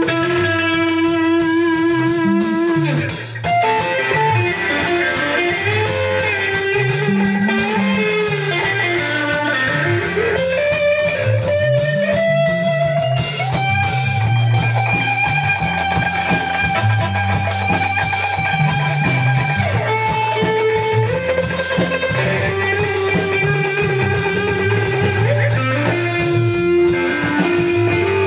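Ska-punk band playing live with no singing: electric guitar over bass and drums, with a lead line of long held notes that waver and slide between pitches.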